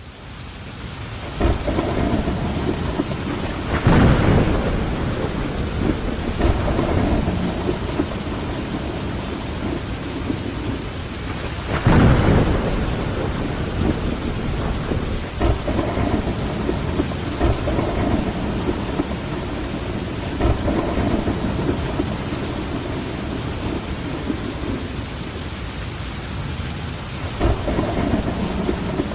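Steady rain on a window, with rumbles of thunder now and then; the loudest claps come about four seconds in and about twelve seconds in. The sound fades up from silence at the start.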